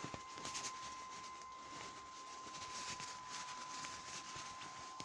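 Faint rustling and crackling of a plastic rain poncho close to the microphone, over a steady high whine from the inflatable sumo costume's battery blower fan.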